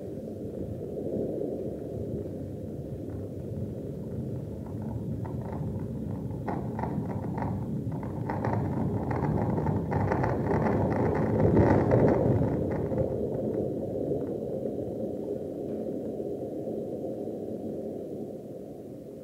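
Low rumbling noise from a stage performance's soundtrack, swelling to its loudest about twelve seconds in and then easing off, with a spell of crackling over its middle.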